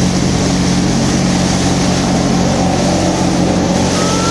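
Motorboat engine running steadily with a low, even hum, under a constant rushing hiss.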